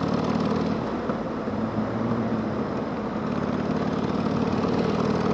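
Harley-Davidson Sportster's V-twin engine running steadily. Its pitch drops about a second and a half in and comes back up around three seconds.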